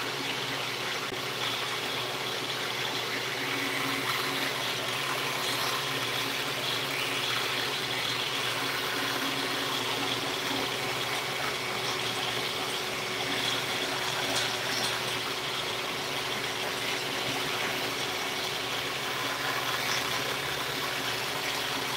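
Table saw running steadily.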